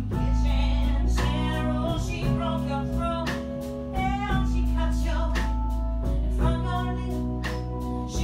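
Live band music: a woman singing over a strummed acoustic guitar, with electric guitar and drums keeping a steady beat.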